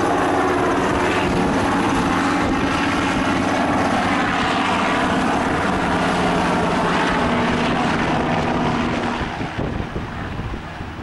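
NHIndustries NH90 military helicopter passing low overhead, its twin turboshaft engines and main rotor running loud and steady. The sound falls off about nine seconds in as it flies away.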